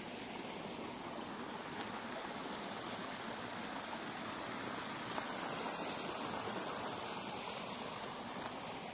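Steady rushing of flowing water as the fish pond is drained.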